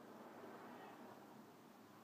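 Near silence: faint room tone, with a soft rustle of a cotton sheet as a cat shifts on it, a little louder in the first second or so.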